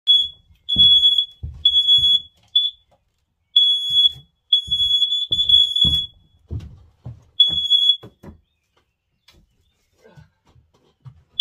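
Smoke alarm sounding a high-pitched beep in irregular bursts, set off by smoke from a freshly lit wood-burning stove; it stops about eight seconds in. Dull thuds sound underneath.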